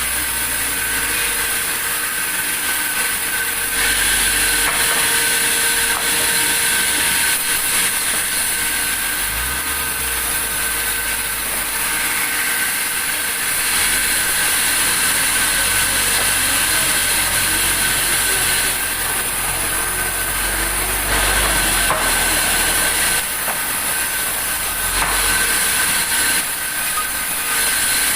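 Sawmill saw running and cutting through wood, a steady noisy whine with constant high tones that shifts slightly in level as the cut goes on.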